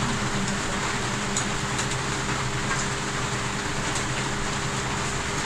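Steady background hiss with a low hum, the constant noise of a small room, with a few faint ticks.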